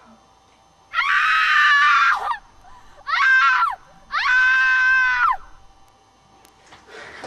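A woman screaming three times, high-pitched and loud: a long scream, a short one, then another long one, each falling in pitch as it breaks off.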